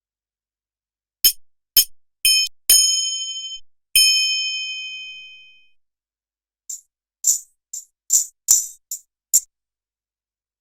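Sampled metallic hand percussion from the SwarPlug 4 Indian-instrument plugin: five struck hits, the last two ringing out for a second or two on clear high tones. After a pause comes a run of about eight short, bright, jingly hits.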